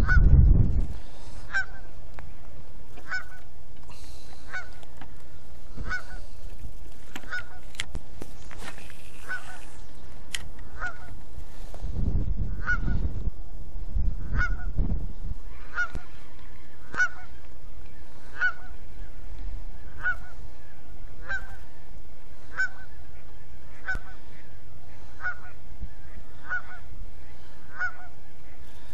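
A goose honking over and over at an even pace of about one honk a second. Low gusts of wind on the microphone come at the start and again around the middle.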